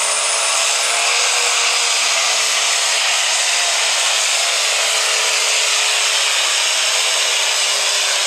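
Diesel engine of a Case IH light pro stock pulling tractor running flat out under load as it drags the weight-transfer sled, a loud steady roar with a thin high whine over it. The pitch sags slightly near the end.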